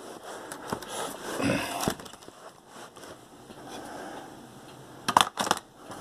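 Handling noise from a Dell Latitude D630 laptop being turned over: soft rustling and scraping with a few light knocks, then a quick run of sharp clicks about five seconds in as the main battery is set into its bay on the underside.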